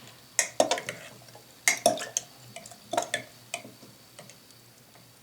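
A run of light clicks and taps of a serving utensil against a plate and dish as pickled red onion is put on the food, thinning out to quiet after about four seconds.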